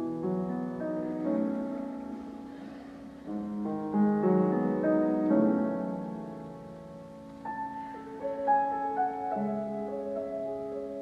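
Solo piano playing slow music, with chords and melody notes left to ring.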